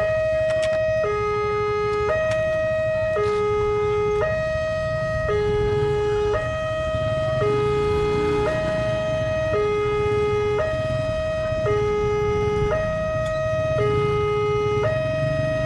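Railway level-crossing warning alarm sounding a two-tone signal, alternating steadily between a higher and a lower note about once a second, warning that a train is approaching. A low rumble runs underneath.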